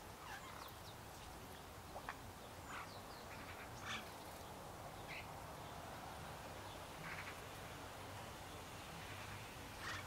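Faint birds calling: short, separate chirps and call notes every second or so, over a steady low background hum.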